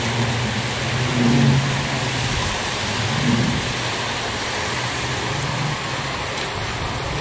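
A speedboat's outboard engines hum as the boat moves off from the beach, fading after the first few seconds, over a steady background hiss.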